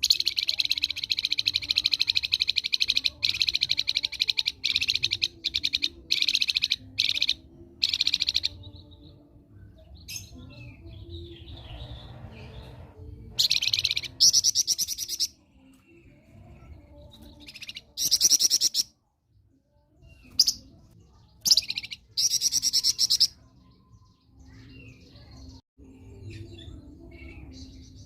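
A flamboyan songbird singing vigorously in loud, rapid, high-pitched trills, a long run of song over the first few seconds, then shorter bursts broken by pauses.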